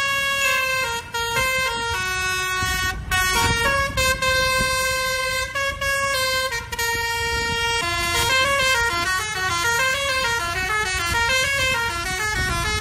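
Indonesian bus 'telolet' multi-tone horn playing a tune over a low rumble: held notes changing pitch in steps, then from about eight seconds in a quicker run of alternating notes.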